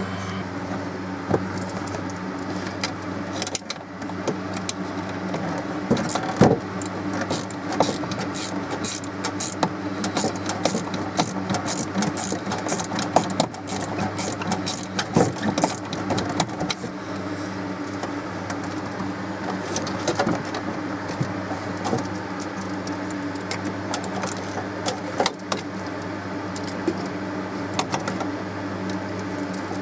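A wrench clicking and clinking on the bolts of a pop-up camper's lift-cable pulley bracket as it is unbolted, with a run of rapid clicks in the middle. A steady mechanical hum runs underneath throughout.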